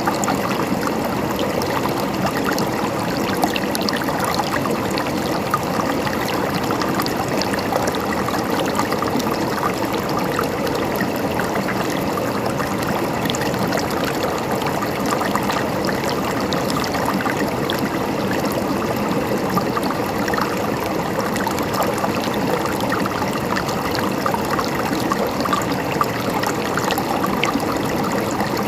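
Running water flowing and trickling steadily, with many small splashes and gurgles and no break.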